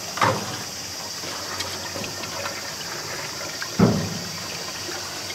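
Water sloshing and swishing in a stainless-steel pot as hands wash rice. Two sudden knocks sound, one just after the start and one near four seconds.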